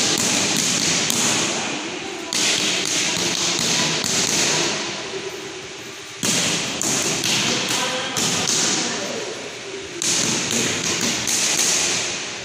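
Three heavy thuds of a judo partner being thrown onto the mat, about four seconds apart. Each impact is followed by a long echo that dies away slowly.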